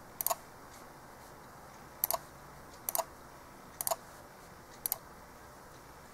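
Five sharp plastic clicks from a wired HP USB mouse's button, about one a second. Each is a quick double tick of press and release as on-screen keys and a search suggestion are clicked.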